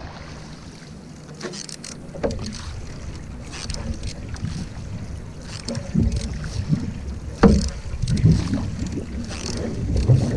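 Canoe paddle strokes splashing and swishing in calm water every second or two, over water running along the hull and a low rumble of wind on the microphone.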